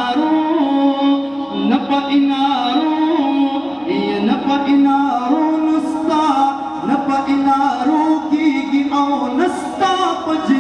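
A man singing a devotional nazam through a microphone and loudspeakers, with no instruments heard, his voice holding long notes that step up and down.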